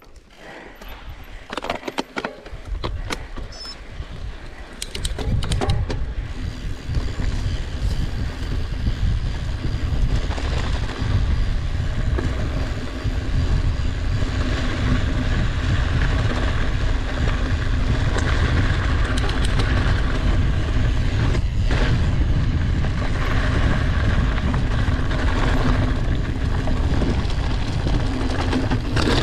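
Mountain bike being ridden over a rough, sandy and gravelly trail: a steady, loud rumble of tyres and wind noise. The first few seconds are quieter, with scattered clicks, before the rumble builds about five seconds in.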